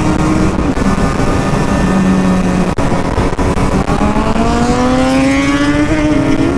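Husqvarna SM 125 two-stroke single engine running under load while riding, with wind rushing over the microphone. The engine pitch dips briefly under a second in, holds steady, then climbs steadily over the second half as the bike accelerates.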